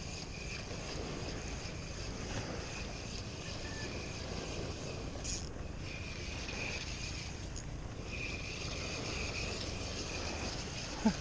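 Wind rumbling on the microphone in open air, with a faint high-pitched drone coming and going in the background and a single light click about five seconds in.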